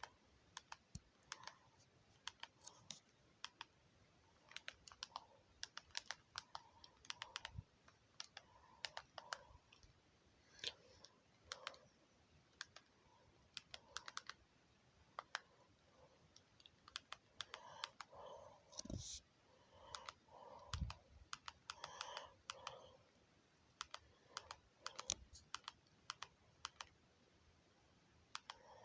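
Faint typing on a keyboard: irregular runs of key clicks with short pauses between them, and two soft low thumps about two-thirds of the way through.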